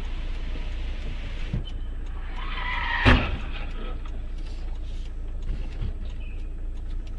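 Car road noise, a steady low rumble, with one short sharp knock about three seconds in.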